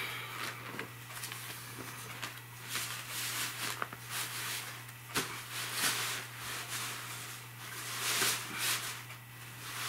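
Rustling of nylon bug netting and a parachute-cloth hammock being handled and spread out, in irregular bursts with a couple of light knocks a little past the middle, over a steady low hum.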